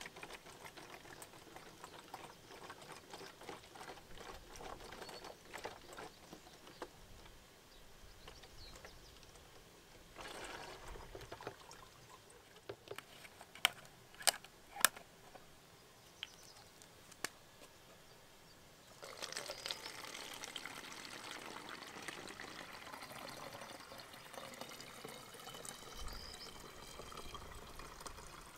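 Liquid trickling as pink coolant is poured from one plastic bottle into a large plastic bottle. About halfway through come three sharp plastic clicks as a canister's cap is worked open. Then water is poured steadily from the canister through a plastic funnel into a plastic bottle.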